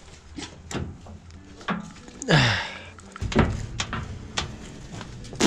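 Steel sideboard latches of a Marpol farm trailer being worked open: several sharp metal clicks and clanks, with a loud creak falling in pitch about two seconds in and another at the very end.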